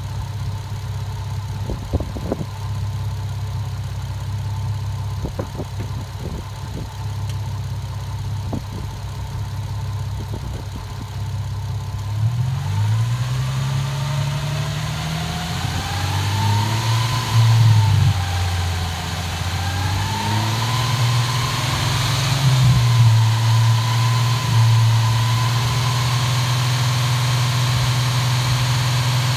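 Warmed-up Nissan 350Z V6 engine idling steadily, with a few short clicks. About twelve seconds in, the revs climb and waver up and down before settling and being held steady at around 2500 rpm.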